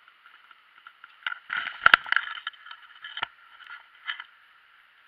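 A chain pickerel swung onto a rocky, grassy bank: a cluster of rustling and knocks with one sharp, loud thump about two seconds in, and another knock about three seconds in, over the steady rush of stream water.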